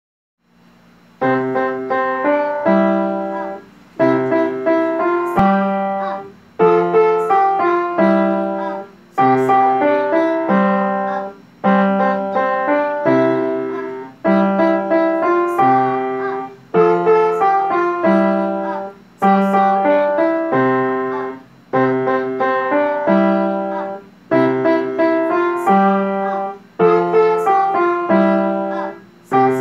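Upright piano played by a young child: a simple beginner piece in short, evenly paced phrases, each opening with a firm note and followed by a brief break, about every two and a half seconds. The playing starts about a second in.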